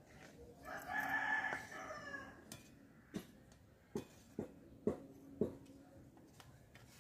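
A rooster crows once, starting about a second in and lasting about a second and a half. Then come five or six sharp metallic clinks a half-second or so apart as a slotted steel ladle knocks against the iron kadai of frying badusha.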